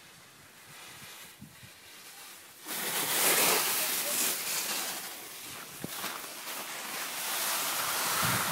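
Quiet at first. About three seconds in, a loud, steady rushing hiss starts abruptly: wind on the microphone and skis sliding over snow as a skier picks up speed downhill.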